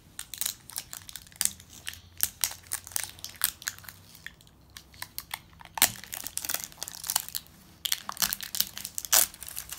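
Plastic wrapping of a LOL Surprise doll ball crinkling and crackling in irregular bursts as its layers are peeled open by hand, with a couple of short pauses midway.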